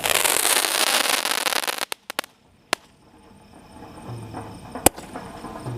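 Crackling firework going off. A dense crackling hiss lasts about two seconds and ends in a few sharp pops. After a lull there is a single loud bang near the end, and the crackling starts up again.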